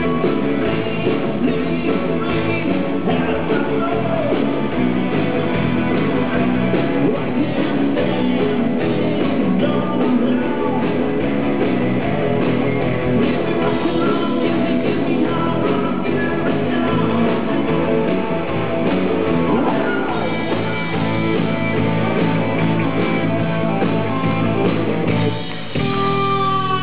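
Live rock band playing, with electric guitars and a male singer. About a second before the end the sound dips briefly and a lead guitar line with bending notes comes in.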